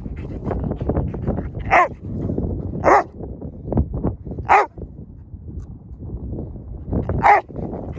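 Black Labrador giving four short, pitched barks at uneven gaps of one to three seconds, the last near the end, over a continuous low rustle.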